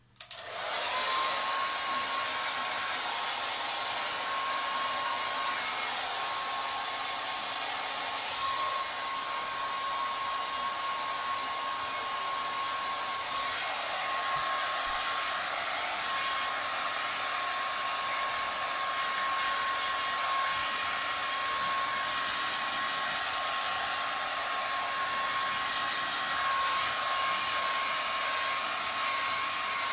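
Handheld hair dryer switched on about half a second in, its whine rising quickly and then holding steady over a constant rush of air as it dries long wet hair.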